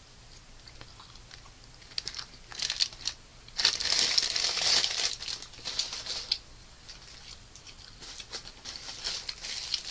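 A food wrapper or bag crinkling and rustling as it is handled. It comes as scattered crackles at first, turns into a dense rustle from about three and a half to six seconds in, then thins out to occasional crackles.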